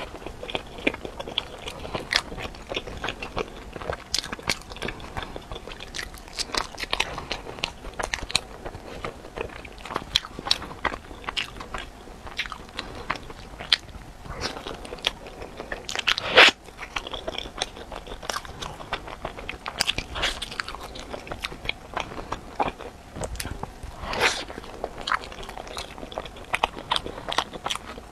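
Close-miked biting and chewing of a crusty European-style bread loaf filled with taro paste and mochi, with dense, irregular crackling of the crust as it is torn and bitten. The loudest crunch comes about 16 seconds in.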